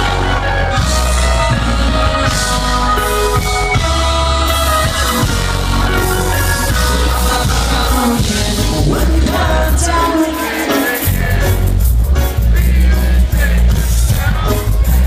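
Live reggae rock band playing, with a heavy bass line, electric guitars, a horn section and singing. The bass drops out briefly about ten seconds in, then comes back.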